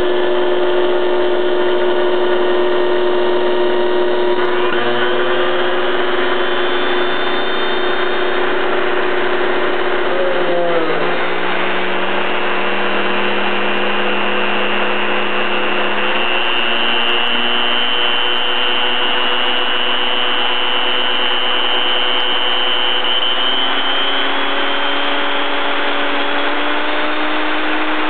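Blender motor running steadily, its pitch shifting to a new level several times as the speed setting is changed on its touch switch panel.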